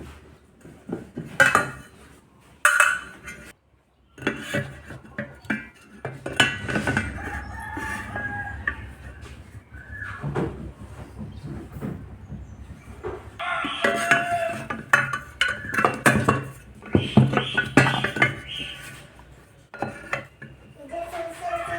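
Metal parts and hand tools clinking and clattering as they are handled and set down, in irregular knocks. A rooster crows in the background about two-thirds of the way through and again near the end.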